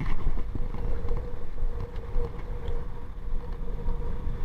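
Low, uneven rumble of wind and rough sea against the microphone, with a faint steady hum running underneath.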